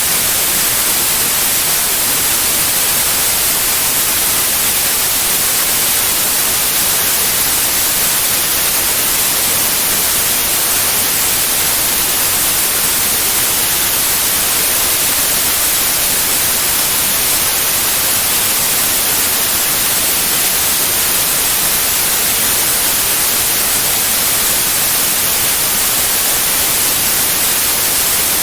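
Steady white noise: an even, unchanging hiss with no tones or breaks.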